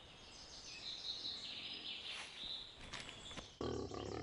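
Faint outdoor ambience with birds chirping. About three and a half seconds in, a wild boar starts grunting, suddenly louder.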